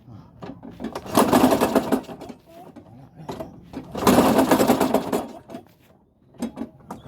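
Makita mower's small petrol engine being cranked on its pull-starter twice, each pull giving about a second of rapid chugging that dies away without the engine catching.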